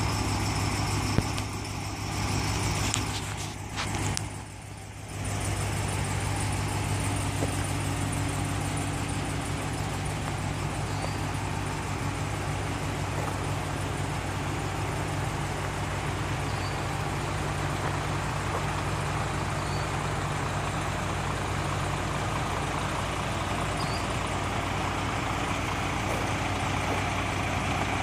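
Ram 2500 pickup truck's engine idling steadily, a low even hum, with a brief dip in level about four seconds in.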